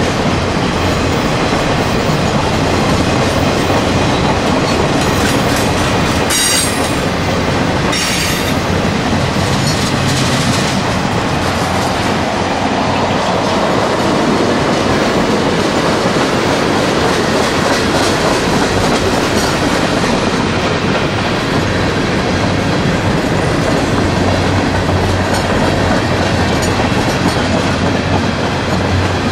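A CSX freight train's cars rolling past, wheels clacking steadily over the rail joints, with two brief high-pitched wheel squeals about six and eight seconds in.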